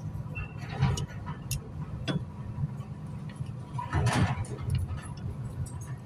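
Light clicks and ticks of copper wire strands being handled and twisted by hand, with a louder clatter of metal tool handling about four seconds in, over a steady low background rumble.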